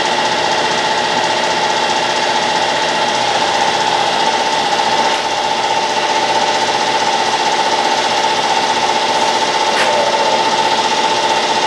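Brown & Sharpe 10x24 universal grinder running steadily: a constant whine over a fast mechanical rattle.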